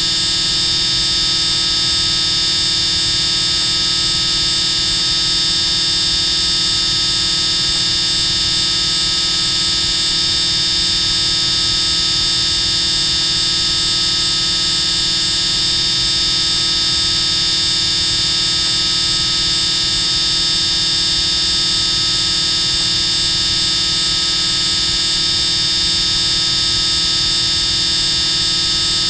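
Extremely loud, steady buzzing sound effect that holds without any change in pitch or level, harsh and high-pitched.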